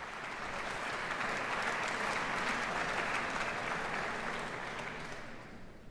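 Audience applauding in a concert hall, the clapping building quickly at the start and dying away near the end.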